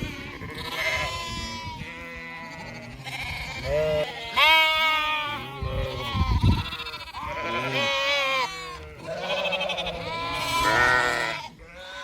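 Gathered ewes and lambs bleating, many calls overlapping one after another, some higher and some lower in pitch.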